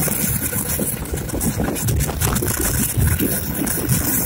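Indian Railways passenger train running, heard from inside the coach by the window: a steady rumble from the wheels and running gear, with a rushing noise above it.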